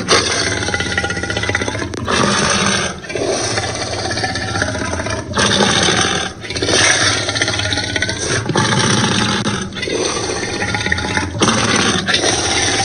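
Tyrannosaurus rex sound effects: a run of about eight roars and growls, each one to two seconds long, following one another with short breaks.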